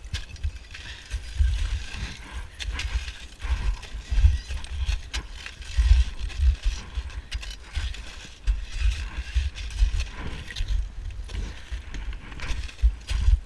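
Crampon footsteps crunching on wind-crusted snow, with metal climbing gear and an ice axe clinking at each step, over uneven low thumps and rumble.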